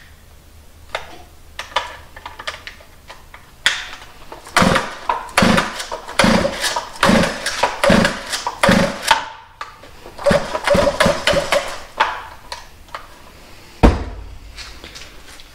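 Small gas chainsaw being pull-started again and again, the recoil starter rope rasping out with each quick pull, and the engine never catches: it won't start. Near the end there is one loud thump as the saw is set down on the workbench.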